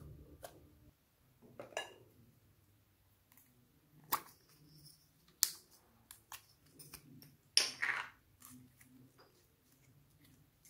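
Soft, scattered clicks and squishes of slime being stretched and pressed by hand, along with a small plastic slime container being handled. Two sharp clicks come in the middle, and a longer noisy squelch about three-quarters of the way through is the loudest sound.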